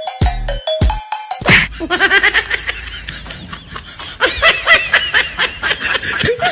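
A short electronic tune with deep bass hits, then, about a second and a half in, a long run of rapid, high-pitched laughter.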